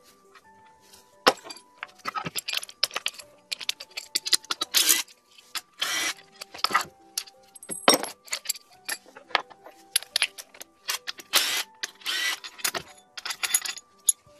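Metal tools and loose bolts clinking and rattling in quick, irregular bursts as a transmission case is unbolted. Music with steady held notes plays underneath.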